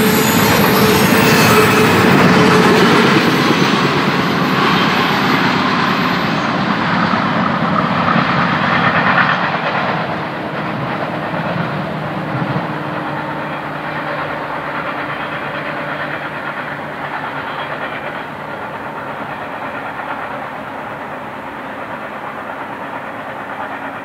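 Intermodal freight train's double-stack cars rolling by on the rails. The sound grows duller and fainter as the train draws away, with a marked drop about ten seconds in.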